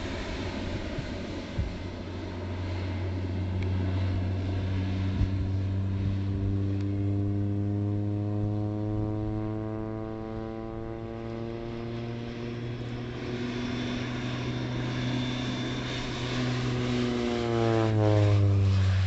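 Air Tractor AT-502 crop-duster's PT6A turboprop engine and propeller droning on a low spraying pass. The sound builds as the plane approaches, then drops sharply in pitch as it passes close, loudest near the end.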